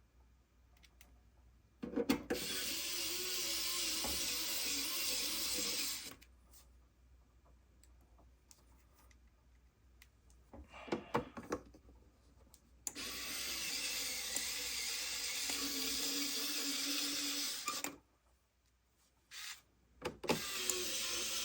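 Cordless electric screwdriver running in three spells of a few seconds each as screws are driven, its battery low from not being charged. A few small clicks and handling knocks between the runs.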